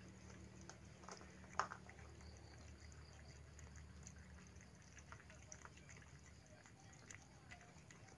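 Cats eating from plastic bowls: faint scattered chewing and lapping clicks, with one sharper tap about a second and a half in, over a faint low hum.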